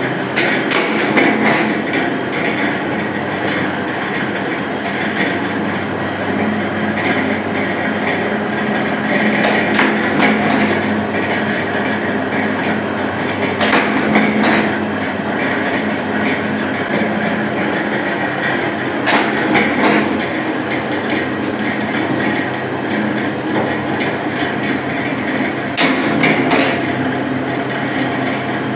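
Flywheel-driven soap-stamping press running with a steady mechanical hum, with sharp knocks every few seconds, often in pairs, as the press strokes stamp the soap bars.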